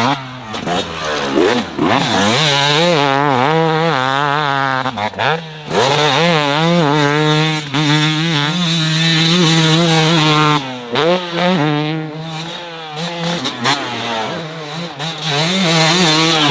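Two-stroke motocross bike being ridden hard around a dirt track. The engine revs climb and fall repeatedly, with brief throttle cuts where the sound drops away: once a few seconds in, once around the middle and again later on.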